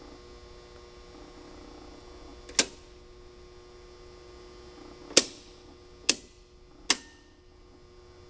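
Switches being flicked: four sharp clicks, one about two and a half seconds in, then three closer together between about five and seven seconds in, over a steady electrical hum.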